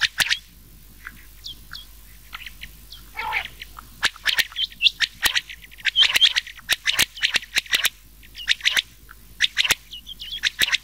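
Quail calls, rain quail and common quail mixed: short, sharp, high notes, each ending in a quick downward flick, repeated in fast clusters that are densest in the middle. This is a call track used as a lure for netting quail.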